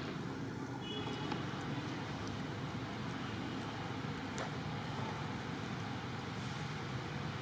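Steady low background rumble of outdoor ambience, with a brief high chirp about a second in and a single sharp click about four and a half seconds in.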